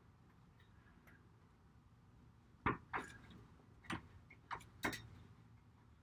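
Hard plastic parts clicking as a C-shaped plastic clip is pressed by hand onto a hollow garage-door roller tube insert. About five sharp clicks come in the second half, after a quiet start.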